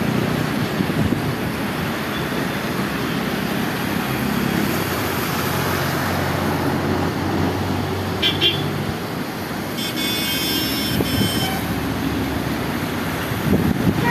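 Steady road traffic noise with wind on the microphone. A vehicle horn gives a short toot about eight seconds in, and a longer horn blast follows from about ten to eleven and a half seconds.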